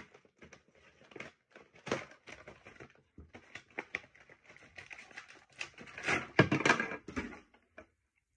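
Cardboard and plastic action-figure packaging being handled and opened: a run of crinkling, crackling and tapping, loudest in a thick spell of rustling about six seconds in.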